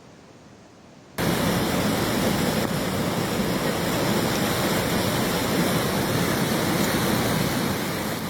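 Rushing floodwater: a loud, steady rush of water that starts abruptly about a second in.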